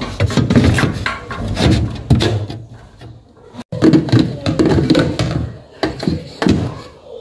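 Irregular knocks and clatter of hard objects being handled and set down, with a quieter pause in the middle.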